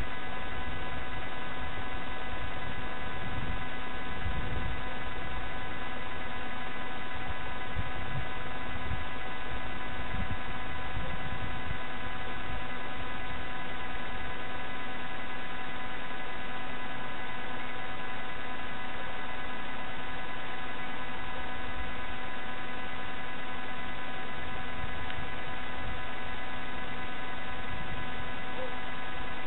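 A steady electrical-sounding hum with many even overtones, unchanging throughout, over a low uneven rumble.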